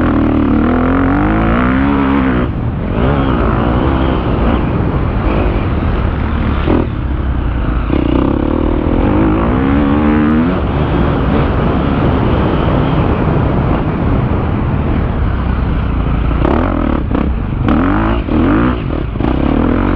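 KTM 250 cc motocross bike's engine revving hard under full throttle, its pitch climbing through the gears twice, with brief throttle cuts between, and several quick cuts near the end.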